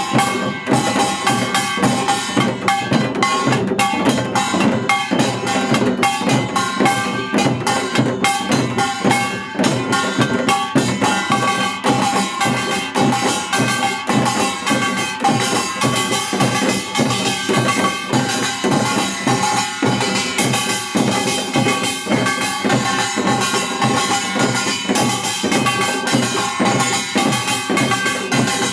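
Music with drums and percussion, a dense run of drum strokes over a few steady held notes.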